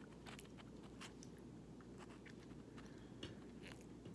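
Faint chewing of a soft Airheads taffy candy: scattered wet mouth clicks and smacks over a low room hum.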